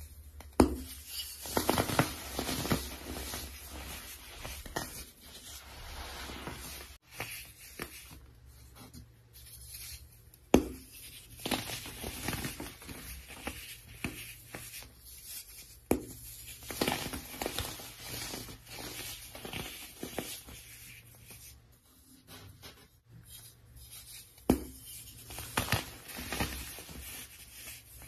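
Dry, powdery soap blocks being crushed and crumbled in the hands: irregular crunching and crackling, with a few sharp cracks as pieces break and a soft patter of falling powder.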